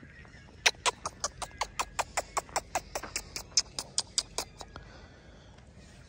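A quick, even series of about twenty sharp clicks, roughly five a second, starting just under a second in and stopping after nearly four seconds.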